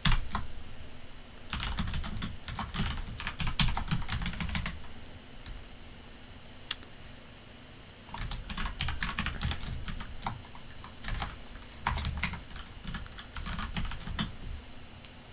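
Typing on a computer keyboard in quick bursts of keystrokes, with a pause of a few seconds in the middle broken by a single keystroke.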